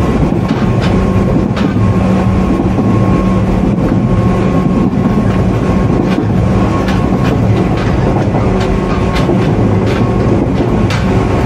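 JR 103 series electric train, motor car KuMoHa 103-3509, running along the line and heard on board: a steady motor and gear hum with scattered clicks of the wheels over rail joints.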